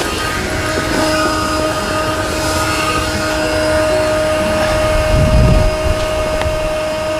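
Strong wind rushing over the microphone, with a heavier low gust about five seconds in, under a steady high hum.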